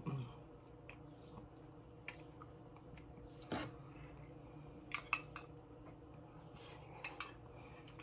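Faint eating sounds of a person chewing baby back ribs: a handful of scattered wet clicks and smacks, the loudest a pair about five seconds in, over a low steady hum.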